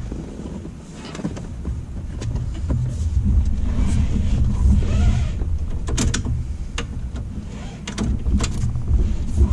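Hands fitting a Jeep TJ's plastic center console: low rumbling knocks and scuffs of plastic being pushed and shifted, with several sharp clicks in the second half.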